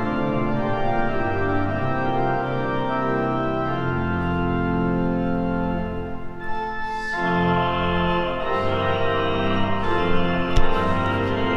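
Church pipe organ playing slow, long-held chords over bass notes, with a short break between chords about two-thirds of the way through. A sharp click near the end.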